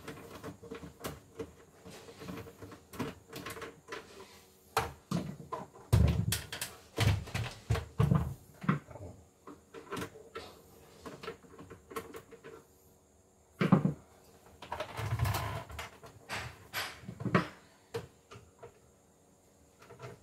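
A screwdriver backing screws out of the plastic housing of a CNY E960 embroidery machine, with a run of clicks, knocks and plastic rattles as the housing is handled and pulled apart. The loudest clusters of knocks come about six seconds in and again around fourteen to seventeen seconds.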